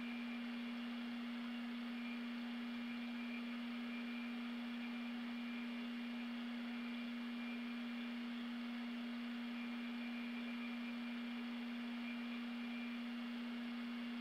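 A single steady tone held at one low-middle pitch, with no swell, fade or decay, over a faint hiss.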